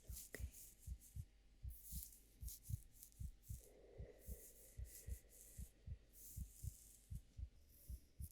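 Faint heartbeat: soft, low lub-dub thumps in pairs, repeating evenly at a little over one beat a second, with soft intermittent high rustling over it.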